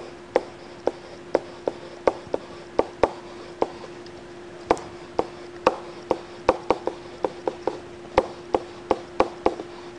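A pen stylus tapping and clicking on a tablet's writing surface during handwriting: irregular sharp ticks, about three a second, over a faint steady hum.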